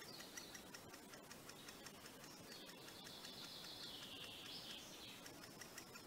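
Great spotted woodpecker nestling at the nest hole, giving a rapid, irregular series of faint ticking begging calls. A longer high-pitched call runs through the middle, from about two and a half to five seconds in.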